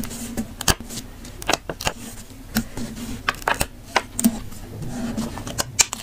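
Metal tweezers and paper stickers being handled on a journal page: an irregular string of small sharp clicks and taps, with light paper rustling as stickers are lifted from their sheet and pressed down.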